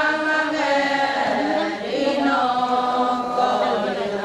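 Several voices chanting a Ponung song together, holding long notes that slide up and down between phrases.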